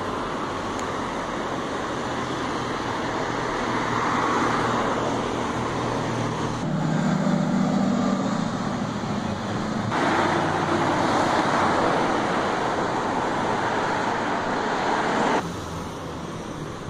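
Road traffic passing on a busy avenue. About seven seconds in, a low sports coupe's engine note comes up strongly and fades as it drives by. The steady rush of passing cars then drops off suddenly about a second and a half before the end.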